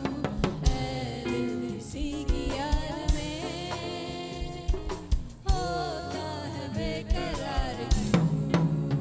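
Singers performing a song into microphones over a live band, with a drum kit's snare and bass drum keeping the beat.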